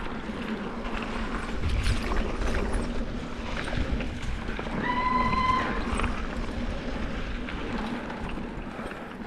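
Mountain bike riding a dirt trail: tyres rolling over the ground with a steady rumble, short rattles and clicks from the bike, and wind on the microphone. About five seconds in, a brief high squeal sounds.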